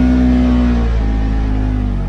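Side-by-side UTV engine running at steady throttle while driving over sand, heard from inside the cab; about a second in the engine note drops lower as the throttle eases off.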